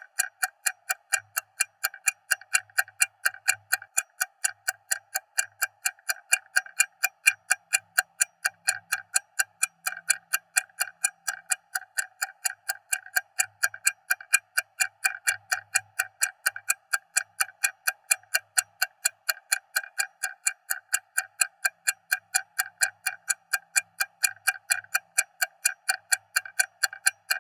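Stopwatch ticking loudly and steadily, a fast even run of sharp mechanical ticks, several a second, with no change in pace.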